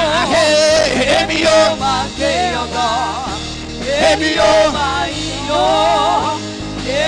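Live gospel worship music: a solo voice sings through a microphone in wavering, bending runs over band accompaniment with sustained bass notes.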